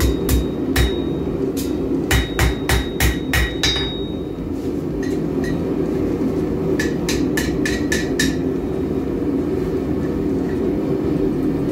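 Blacksmith's hand hammer striking hot steel on an anvil in quick runs of blows, the anvil ringing with each strike, with pauses about four seconds in and again near the end. A steady low hum runs underneath.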